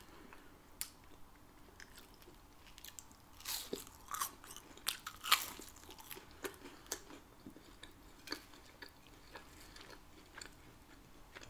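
Close-miked eating: biting and chewing wedges of a cheese quesadilla made with char-grilled flour tortillas. Crisp crunches are thickest and loudest between about three and a half and five and a half seconds in, with softer chewing clicks the rest of the time.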